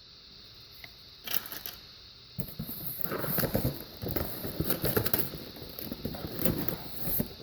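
Plastic bags and cardboard packaging being handled, with a single click about a second in and then a busy run of rustling, crinkling and small clicks from about two and a half seconds on, as speaker parts are taken out of the box.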